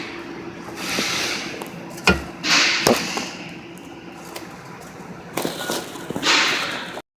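Short hissing bursts, four or so, each about half a second to a second long, with two sharp knocks between them, from cleaning grimy engine parts.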